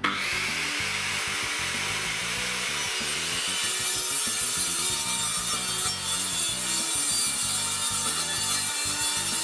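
Makita circular saw running at full speed and cutting through a wooden panel along a guide rail. The sound cuts in abruptly at the start and runs on steadily.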